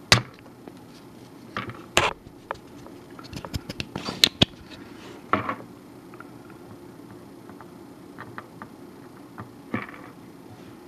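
Tenma desoldering iron worked on circuit-board solder joints: a few sharp clicks and knocks, the loudest near the start and about two seconds in, with a quick run of small ticks around four seconds, over a steady low hum.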